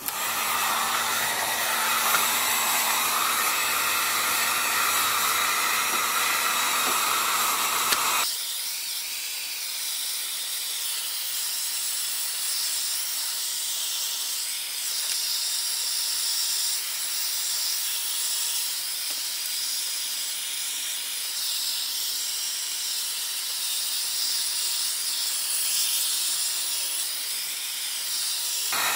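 Handheld heat gun blowing hot air in a steady hiss while softening a stretched, bubbled sheet of surfboard fiberglass to flatten it. About eight seconds in the sound changes abruptly, losing its low hum.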